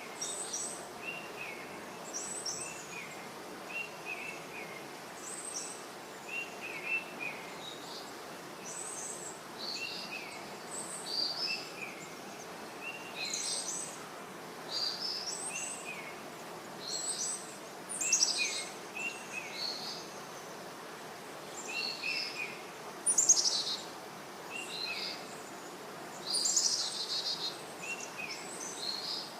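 Forest birdsong: at least two birds calling, one repeating short chirps about every second, another giving higher, sharper phrases, over a steady background hiss.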